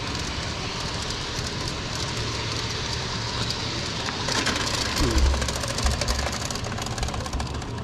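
Ride-on miniature train rolling along its track: a steady rumble and clatter from the wheels and rails, with a run of rapid clicks and a few heavy low thumps about four to six seconds in.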